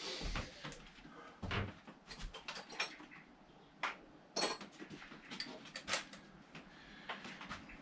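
Scattered clinks, knocks and rattles of tools and parts being moved about as someone rummages for a tool.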